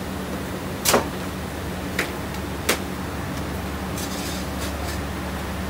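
Bakery kitchen noise: a steady low hum from the oven and ventilation, broken by three sharp knocks, the loudest about a second in, the others around two seconds and just under three seconds in.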